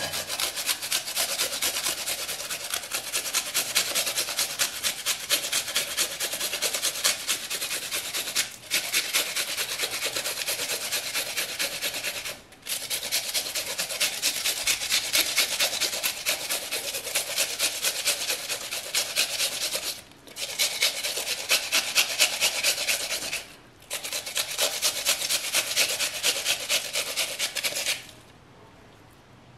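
Peeled onion rubbed fast back and forth across a flat stainless-steel hand grater: a steady scraping rasp, broken by four short pauses. It stops near the end.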